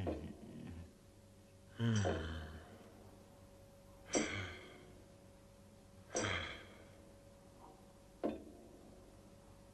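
Men's voices sighing and groaning, three separate sighs about two seconds apart, then a short sharp sound near the end.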